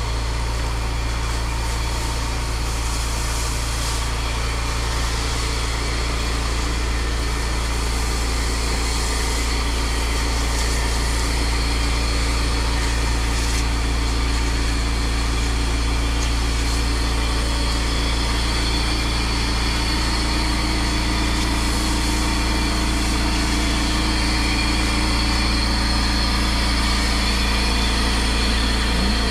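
Pressure washer engine running steadily at a constant speed, a deep even hum with a steady hiss over it.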